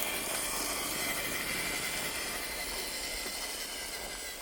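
Axial SCX10 III RC crawler's electric motor and gear drivetrain running at full throttle on a 3S battery: a steady high whine over a hissy gear noise, slowly getting fainter toward the end.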